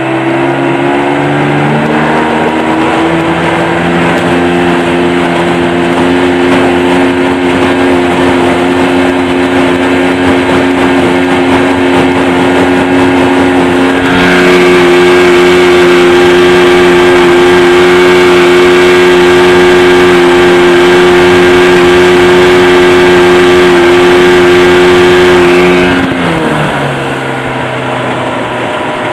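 Early-1990s Mercury 25 hp two-stroke outboard running under way, pushing an aluminum jon boat across a lake. It revs up over the first few seconds, holds a steady pitch, gets louder about halfway through, and its pitch falls near the end.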